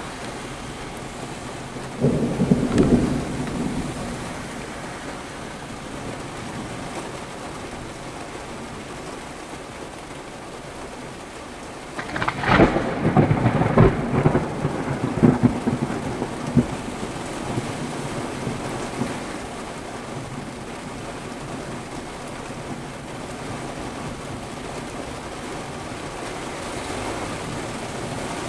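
Two thunder peals over a steady hiss, heard from inside a car. A rumble comes about two seconds in, then about twelve seconds in a louder, sharper crack rolls and crackles on for several seconds before fading.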